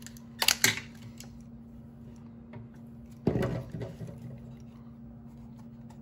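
Handling noise from the plastic parts and wiring of a disassembled cordless vacuum: a few sharp clicks about half a second in and a louder clatter about three seconds in, over a steady low hum.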